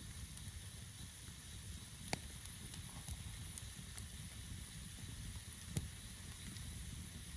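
Quiet forest ambience: a low, fluctuating rumble under a faint steady high hiss. Two sharp clicks come through, about two seconds in and again near six seconds.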